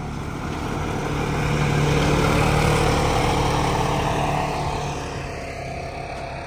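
Polaris side-by-side UTV on rubber snow tracks driving past uphill, its engine running steadily under load. It grows louder as it comes close, is loudest about two and a half seconds in, then fades as it climbs away.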